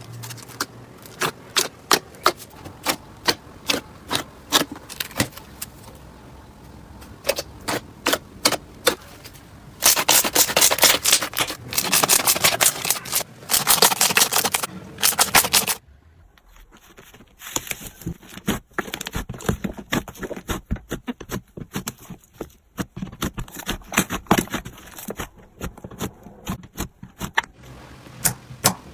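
Slime being squeezed and poked, making a string of crisp clicks and pops, with dense crackling for several seconds in the middle. Partway through it changes to a duller, muffled series of clicks as the next clip begins.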